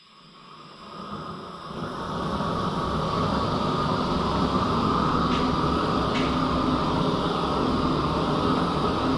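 A gas torch burning, growing louder over the first two seconds and then steady. It is preheating the steel tubes and cast centre section of a Sterling 10.5 axle housing before welding.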